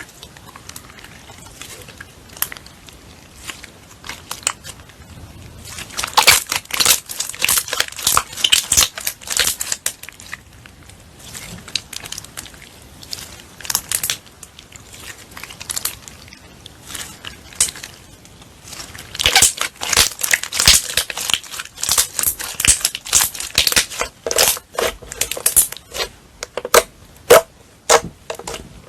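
Slime being squeezed and worked by hand, giving dense crackling and popping clicks, thickest in two stretches, from about six to ten seconds in and again from about nineteen seconds to near the end.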